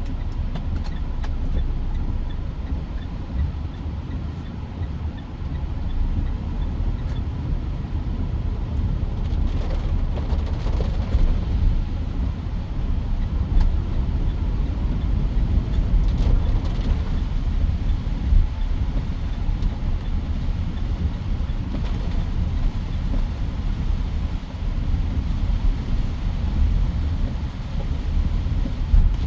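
Road and engine noise of a Mitsubishi Pajero Sport SUV being driven: a steady low rumble.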